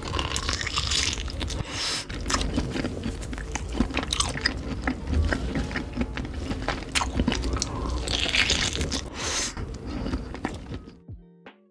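Close-miked eating: big bites into a giant sauce-dipped sausage and chewing it. The sounds are strongest about a second in and again around eight to nine seconds, and they stop shortly before the end.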